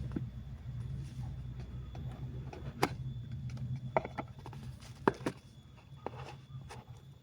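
A few sharp clicks and taps from handling a new smartphone and its packaging, over a steady low hum.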